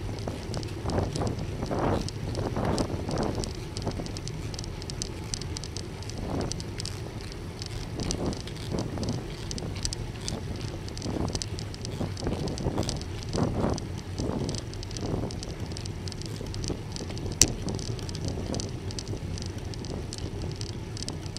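A bicycle being ridden on the road: steady tyre and road rumble with wind gusting over the microphone and fine crackling ticks throughout. One sharp click sounds about seventeen seconds in.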